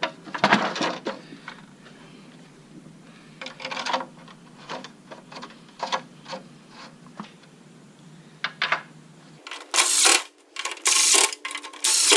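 Small clicks and knocks at first. Then, from about two-thirds of the way in, the push mower's recoil starter cord is yanked several times in quick succession: short whirring pulls with pauses between them, and the engine not yet running.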